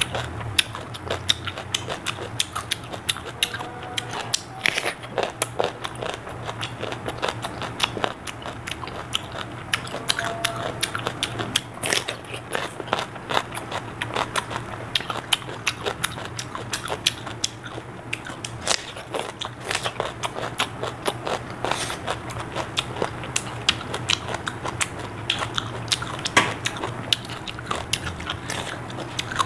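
Close-up crunching and chewing of raw cucumber: crisp bites and wet mouth sounds, many crackles a second, over a low steady hum.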